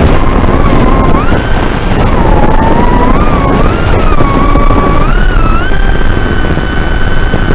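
FPV quadcopter's motors and propellers whining, the pitch gliding up and down with the throttle over a steady rushing hiss. The pitch climbs about a second in, dips, then rises again and holds high through the last couple of seconds.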